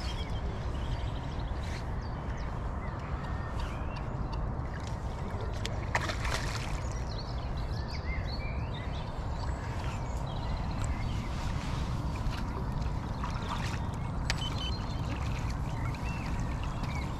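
Wind rumbling on the microphone, steady throughout, with small birds chirping faintly in the background and a few light clicks.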